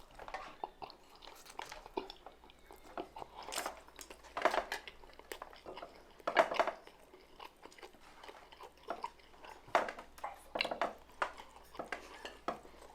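Close-up chewing and crunching of food by a person eating, with irregular bites and crunches, a few of them louder.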